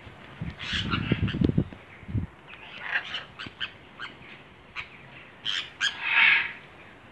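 Scarlet macaws calling: scattered short chirps and clicks, then one loud harsh squawk about six seconds in. A quick run of low thuds comes in the first two seconds.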